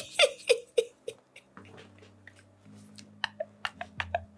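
A man laughing, a quick run of short pitched bursts about four a second that dies away after about a second. Soft, low background music notes carry on beneath.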